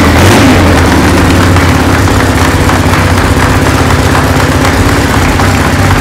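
1978 Harley-Davidson Sportster's Ironhead V-twin running at a steady, loud idle.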